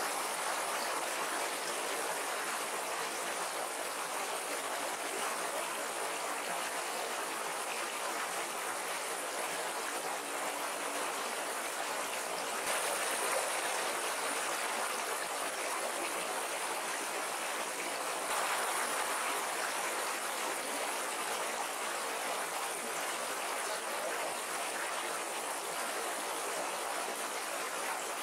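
Small, shallow stream rushing over rocks: a steady noise of running water.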